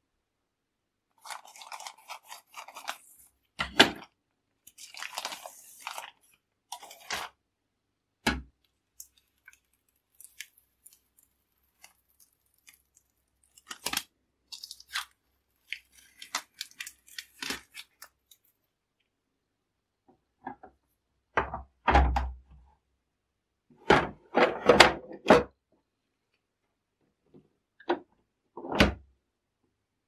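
Plastic and metal parts of a DeLonghi ESAM Magnifica coffee machine being handled and fitted back together: scattered clicks, knocks and short scraping sounds, with a few louder knocks.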